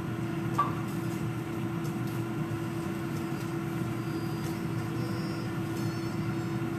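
Countertop air fryer oven running with pork chops inside, its fan giving a steady hum with one constant tone.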